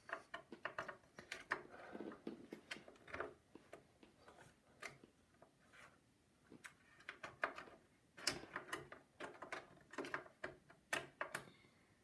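Irregular small clicks and taps of a desktop RAM stick being worked against a motherboard memory slot and its plastic latches, sparser for a few seconds in the middle. The module is the wrong type for the slot and will not seat.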